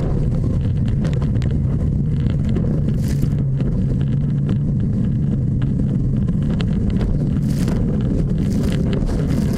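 Boat engine running steadily with a constant low hum, with wind buffeting the microphone.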